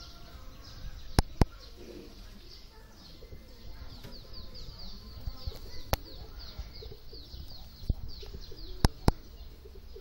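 Pigeons feeding on the ground with low cooing, while a bird chirps in quick falling notes, several a second, through the middle. Sharp clicks are the loudest sounds: two close together about a second in, single ones midway, and two more near the end.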